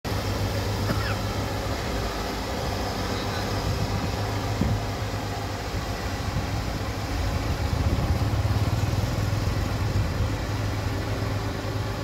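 Combine harvester and small tractor engines running as they drive across a bridge: a steady low diesel drone that swells for a couple of seconds just past the middle.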